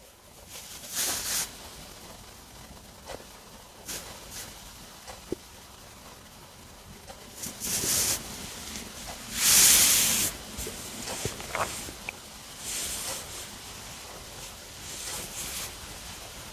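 Human stomach gurgling after a meal, picked up close to the belly: short squeaky gurgles with several louder rushes of noise, the loudest about ten seconds in.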